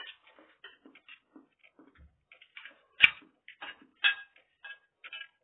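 Eating at a table: small scattered mouth and cutlery sounds, with a sharp clink of metal cutlery against a china plate about three seconds in, the loudest sound, and a lighter one a second later.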